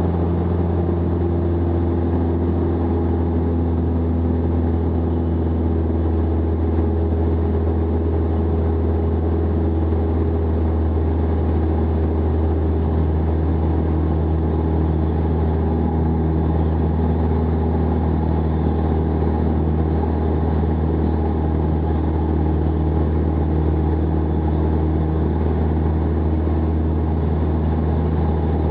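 Jabiru SP500 light aircraft's 2.2-litre Jabiru engine and propeller droning steadily in cruise flight, the tone shifting slightly about halfway through.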